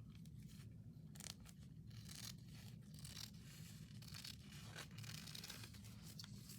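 Faint snips and rustles of scissors cutting a paper napkin, a scatter of short soft sounds over a low background hum.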